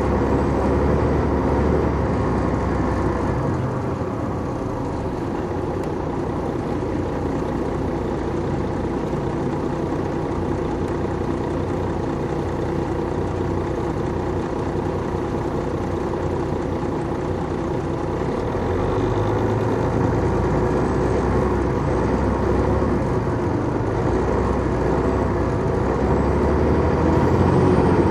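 Detroit Diesel Series 60 diesel engine of an MCI D4000 coach bus running on the road, heard from inside the bus. The engine eases off about four seconds in and pulls harder again in the last few seconds, getting louder toward the end.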